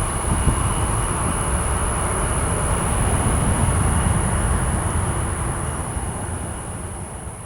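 Airbus A320's jet engines rumbling at takeoff thrust as the airliner climbs away. The sound holds steady for about five seconds, then fades toward the end.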